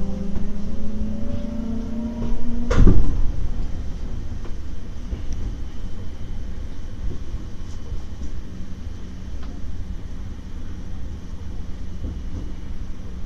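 Electric train running slowly through a tunnel: a whine from the motors that rises slightly in pitch, cut off by a loud thump about three seconds in, then a steady low rumble of the wheels on the rails.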